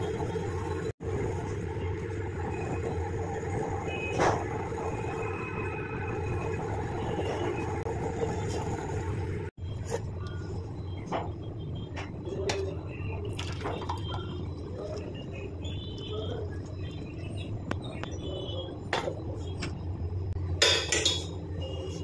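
Metal kitchen utensils clinking now and then against a cooking pot, half a dozen short knocks spread over a steady low hum.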